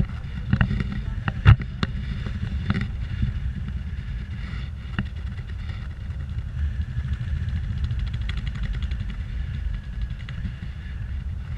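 Wind rushing over an action camera's microphone from the airflow of a paraglider in flight: a steady low buffeting, with a few sharp knocks in the first three seconds, the loudest about a second and a half in.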